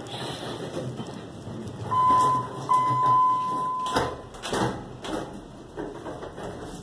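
An elevator's electronic signal tone: one steady beep held for about two seconds with a short break in it, cut off by a knock about four seconds in as the sliding doors start to move.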